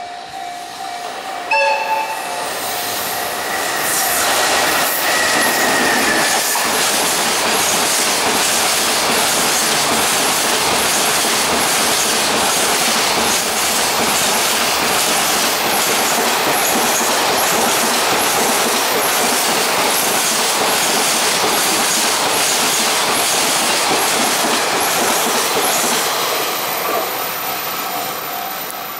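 An EF210 electric locomotive sounds its horn in the first two seconds as it approaches at speed. Then a long freight train of container flatcars passes for over twenty seconds: a loud steady rumble with a rhythmic clatter of wheels over rail joints, fading near the end. A thin wheel squeal sounds for a few seconds after the horn.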